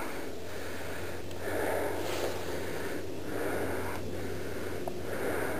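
A hiker breathing hard close to the microphone while climbing a steep slope, one breath about every second.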